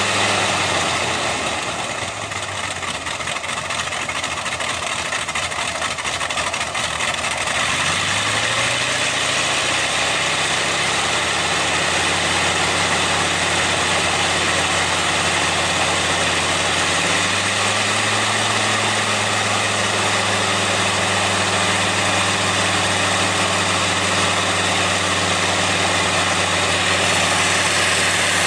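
Bristol Hercules twin-row radial aircraft engine running with its propeller turning. Its note sags early on, climbs back up about eight seconds in, and swells briefly a little past halfway before holding a steady speed.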